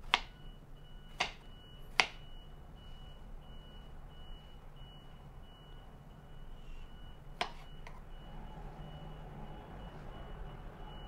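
Ceramic knife slicing strawberries on a wooden cutting board: four sharp knocks of the blade on the board, three in the first two seconds and one more about seven seconds in. A faint high tone beeps on and off underneath.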